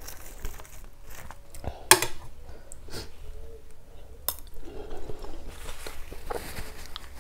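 Metal spoon clinking against a ceramic soup bowl a few times, the sharpest clink about two seconds in.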